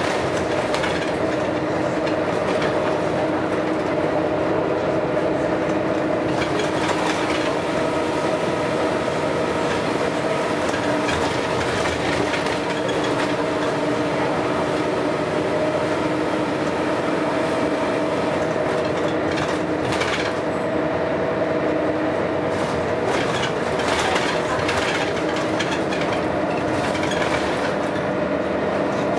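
Scania L113CRL single-deck bus's six-cylinder diesel engine working hard, with a steady engine drone and frequent knocks and rattles from the body.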